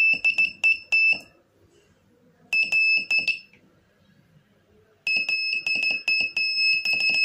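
Breadboard electronic buzzer sounding a steady high-pitched beep in short pulses as a push button is pressed, the sounder of a simple single-wire telegraph. A run of quick beeps at the start, a shorter run about halfway, and a longer run from about five seconds in.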